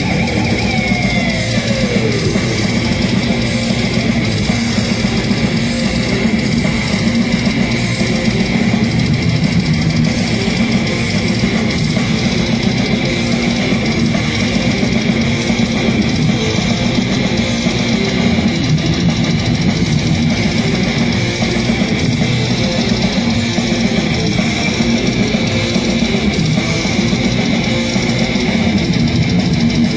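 Death metal band playing live without vocals: distorted electric guitars, bass and drums in a dense, steady wall of sound. About a second in, a note slides down in pitch.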